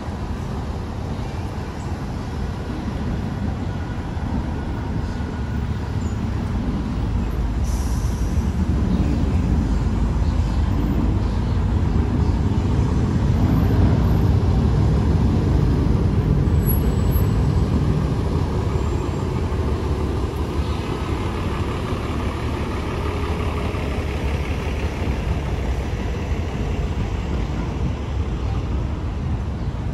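Downtown street traffic: a steady low rumble of engines and tyres that grows louder, peaks about halfway through, then eases off.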